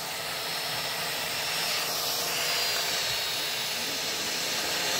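Small GPS quadcopter drone (Venom Pro) flying, its motors and propellers giving a steady hissing whir with a faint high whine that wavers in pitch.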